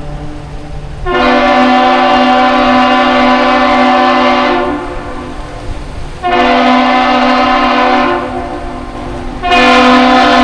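Steam whistle of the 1942 laker Alpena sounding the captain's salute: one long blast followed by two shorter blasts, each a steady, rich tone.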